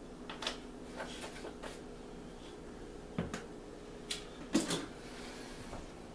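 Kitchen handling noise: a scattered run of light clicks and knocks as containers and a spice jar are put down and moved on a countertop, the loudest knock about four and a half seconds in, over a steady low hum.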